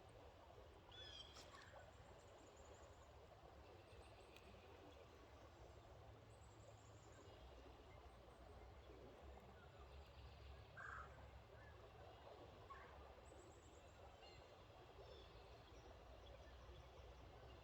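Near silence: a faint low rumble with a few distant, high bird chirps and short trills.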